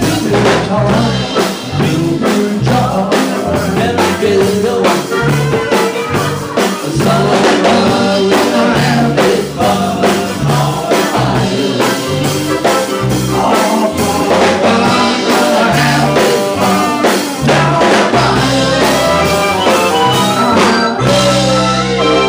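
Live band playing an upbeat song, with saxophone, drum kit and bass over a steady beat. Near the end the beat stops and the band holds a sustained organ chord.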